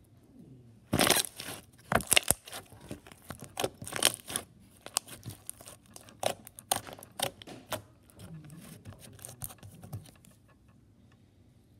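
Hands squeezing, pressing and stretching a crunchy slime, giving a quick run of crackling, popping crunches that are loudest in the first couple of seconds and thin out to a soft squish after about eight seconds.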